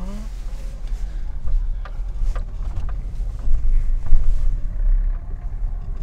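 Lada Kalina hatchback heard from inside the cabin as it pulls out and drives off: a low, uneven engine and road rumble that swells a few seconds in, with a few light clicks or knocks.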